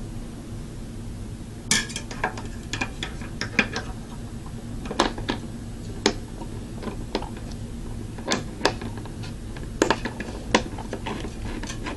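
Irregular metallic clinks and clicks of CPU cooler mounting hardware, the metal plate, brackets and screws, being handled and set in place, starting about two seconds in.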